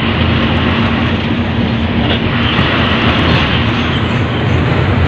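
Truck cab noise while driving: a steady engine and road rumble with a constant low hum.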